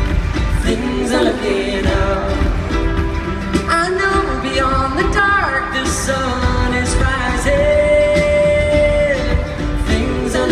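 Live pop band playing with singing, including long held notes.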